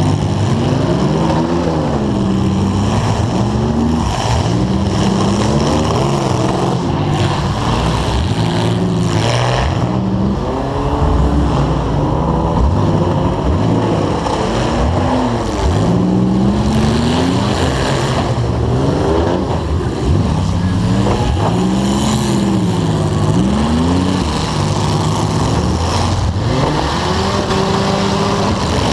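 Demolition derby car engine revving up and down again and again, loud and close, with other derby car engines running around it and a few knocks of metal.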